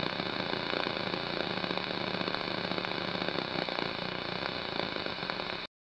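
Steady hiss of TV static, with a few faint steady tones in it, cutting off suddenly near the end.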